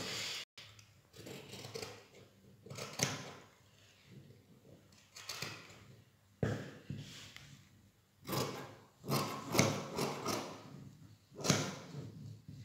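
Scissors cutting through fabric: a dozen or so uneven snips, with the cloth rustling and shifting on the table between them.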